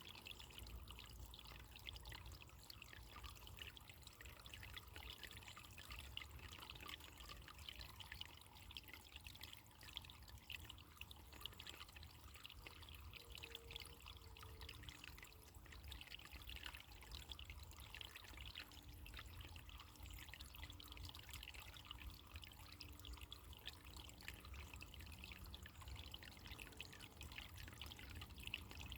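Faint running water trickling and babbling steadily over a low rumble.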